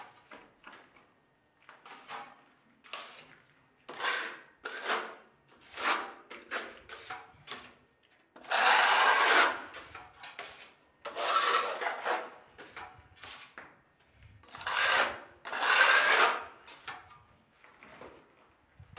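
Steel trowel spreading wall putty over a new plastered wall: a series of scraping strokes, short ones first, then several long loud sweeps in the second half.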